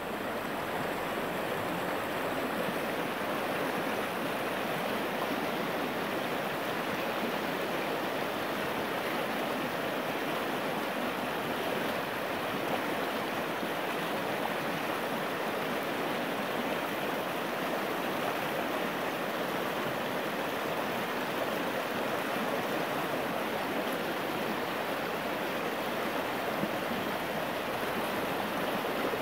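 Shallow river running steadily over a gravel riffle, a constant rushing of water with no change.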